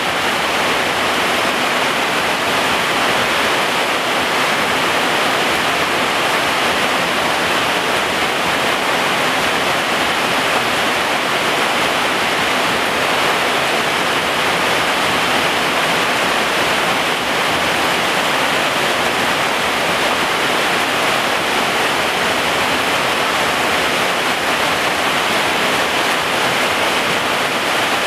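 Heavy rain pouring steadily onto garden foliage and ground: a dense, even hiss that does not let up.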